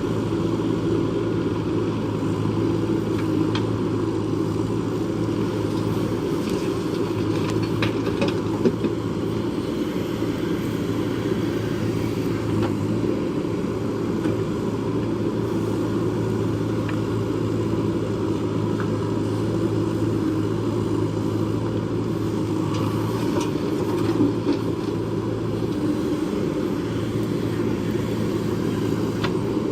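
Diesel engine of a JCB backhoe loader running steadily while it works, with a few sharp knocks here and there.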